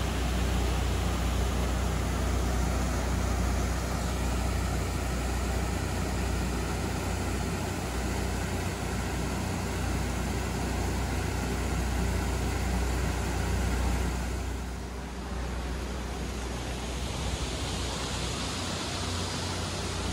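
Steady rushing of river water spilling through sandbag barriers, under a low steady engine hum. About fifteen seconds in the sound drops and changes to a thinner, higher hiss.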